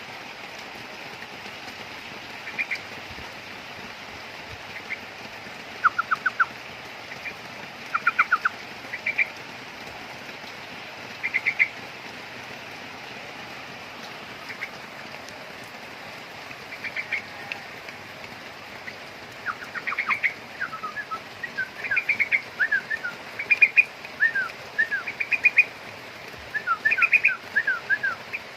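Young yellow-vented bulbul calling in short bursts of quick chirps, with some falling notes mixed in; the bursts come sparsely at first and almost continuously over the last third.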